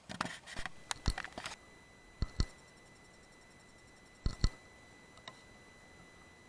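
A run of small clicks, then two sharp double cracks about two seconds apart, each pair a fraction of a second long: shots from a .22 Weihrauch HW100S air rifle fired while checking its zero on a target. A faint steady high tone runs under them.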